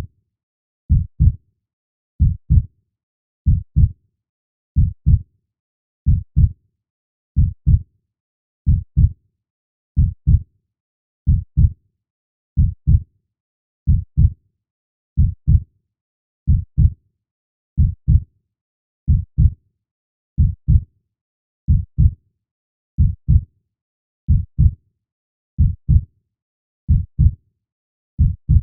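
A human heartbeat: a slow, steady lub-dub, each beat a pair of low thumps, about every 1.3 seconds, with silence between beats.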